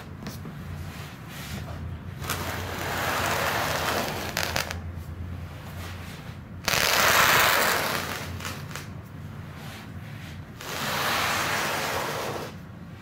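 Large cardboard box being turned and slid about on a wooden table: rustling, scraping noise in several swells, the loudest starting suddenly about halfway through.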